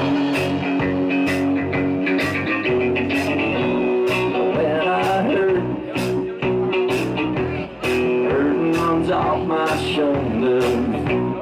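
Live rock band playing: electric guitars over bass and a steady drum beat with regular cymbal hits, and a few bending lead notes.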